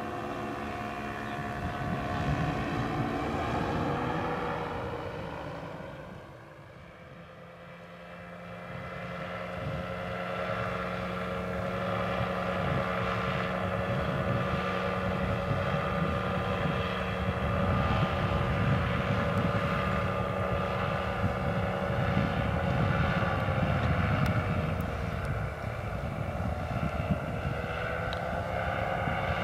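Powered paraglider's paramotor, engine and propeller droning overhead. Its pitch sinks and it fades about five seconds in, then grows back to a steady drone, with a brief drop and rise in pitch near the end.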